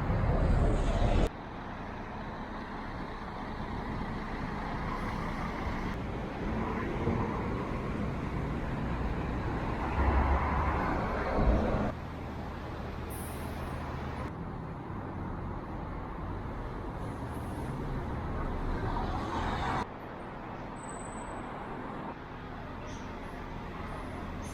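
Road traffic: vehicles passing, with a louder low rumble about halfway through. The background changes abruptly a few times where short clips are cut together.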